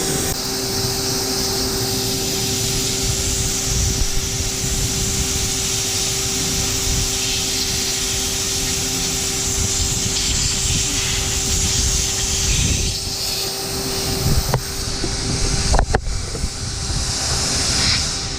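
Vacuum cleaner running in blower mode, a steady motor hum with a rushing hiss of air, blowing into the exhaust pipe to push air out through the leaks. A few sharp knocks near the end.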